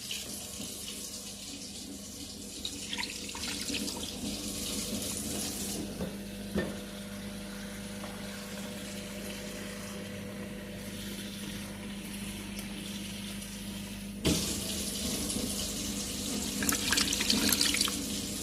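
Kitchen tap water running into a sink. The running water is strong for the first few seconds, softer in the middle, and comes back suddenly near the end, with a few light clinks and a steady low hum underneath.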